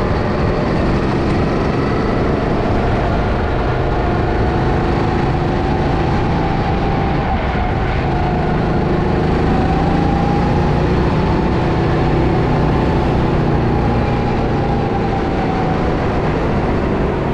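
Go-kart engine running at speed, its pitch slowly rising and falling through the corners over a steady low rumble.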